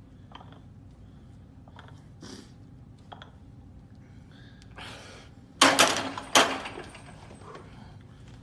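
Barbell loaded with plates and hanging chains being racked on the bench: two loud metallic clanks about a second apart with chain rattle, after a few fainter clinks of the bar and chains during the reps.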